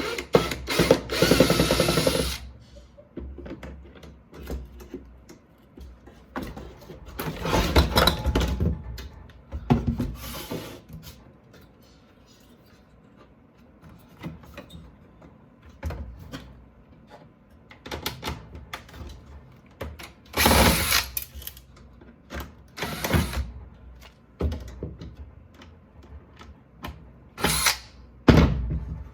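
Porter-Cable cordless drill driving out screws in short runs of whirring, with the longest run at the start and several shorter ones spread through. Between the runs come scattered clicks and knocks of parts being handled.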